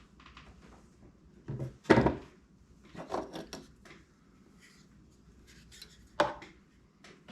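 Knocks and clatter of parts and tools being handled: a sharp knock about two seconds in, a short run of clatter a second later, and another knock near the end.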